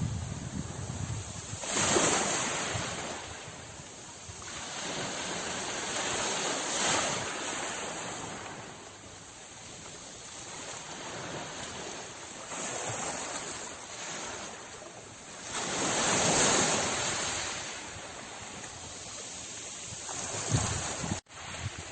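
Sea waves washing onto the shore, swelling and falling away in slow surges, the biggest about 2, 7 and 16 seconds in, with wind buffeting the microphone. The sound cuts out for an instant just before the end.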